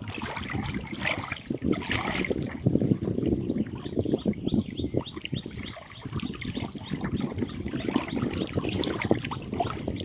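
Small waves lapping and splashing irregularly against a stony lakeshore, over a low rush of wind.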